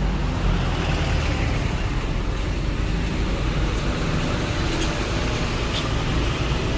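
Street traffic: a vehicle's low rumble easing off in the first second, then steady road noise.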